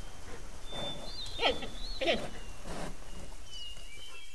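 Giant panda calling: two short pitched calls, about a second and a half and two seconds in, over faint high chirps.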